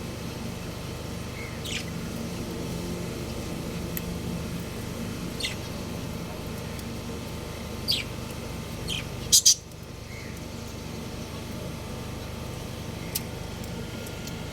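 Budgerigars giving short, scattered chirps over a steady low background hum. The loudest is a quick double chirp about two-thirds of the way through.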